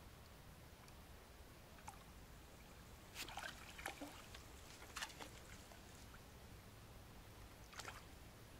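Hooked fish splashing at the water's surface as it is played close to the bank: a cluster of short splashes about three seconds in, another about five seconds in, and one more near the end.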